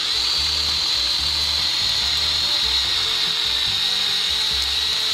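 Milwaukee M12 Hatchet brushless battery mini pruning chainsaw running flat out with a steady high whine as its chain cuts through wood.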